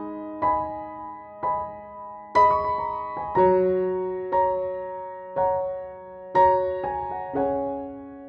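Background piano music: slow, gentle chords struck about once a second, each ringing out before the next.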